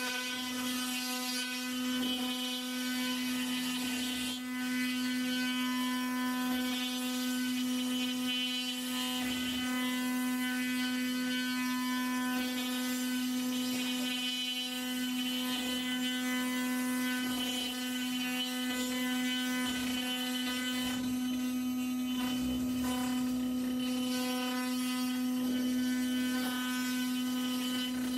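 CNC router spindle on a Onefinity Elite Foreman running a job, with a steady whine. The rougher sound of the bit cutting wood rises and falls as the head moves along the toolpath.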